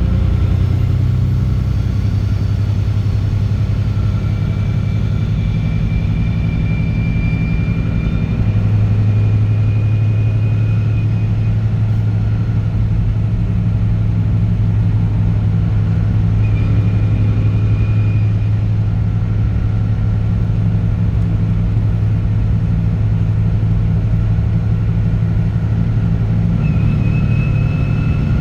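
Straight-piped Caterpillar C15 ACERT inline-six diesel in a truck running steadily under way, a deep continuous drone that grows louder about eight seconds in.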